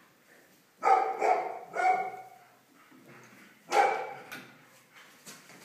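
A dog barking excitedly: three short barks in quick succession about a second in, then one more near the middle.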